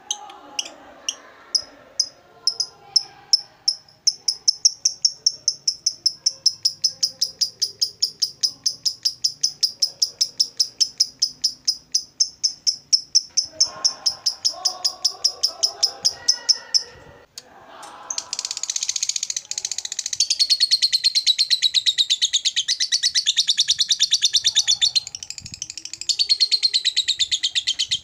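Fischer's lovebird singing its long 'ngekek' chatter: a run of sharp high chirps that speeds up to about six a second, breaks off briefly a little after halfway, then goes on as a dense, unbroken rapid chatter.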